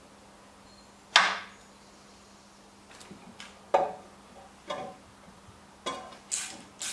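Hand tools clinking and knocking against the steel parts of a lathe's X-axis ball screw assembly as it is bolted back together: about six sharp metallic clicks at uneven intervals, the loudest about a second in.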